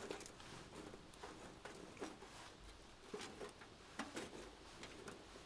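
Fire in a small Pomoly wood stove crackling faintly, with scattered sharp ticks roughly a second apart over a soft hiss.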